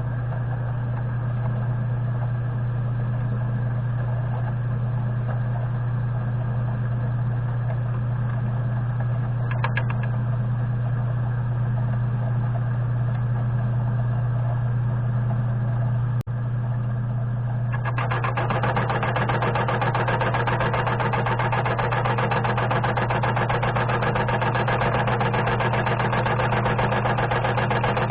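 Small machine tool's electric motor running with a steady hum. About two-thirds of the way through, a rougher, fuller grinding texture joins the hum.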